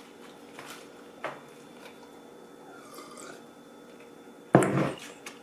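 Quiet eating sounds of a sandwich being chewed close to the microphone, with one short, louder mouth sound about four and a half seconds in.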